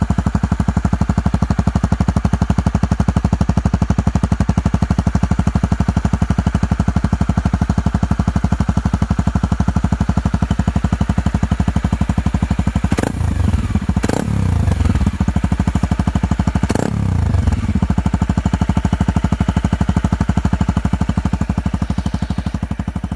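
Honda CRF250M's single-cylinder four-stroke engine idling with an even exhaust beat, given three quick throttle blips about halfway through, then fading out near the end.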